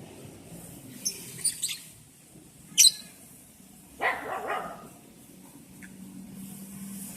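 A few short, shrill bird chirps, the loudest one sharp and sudden near three seconds in, then a dog barking about three times in quick succession around four seconds in.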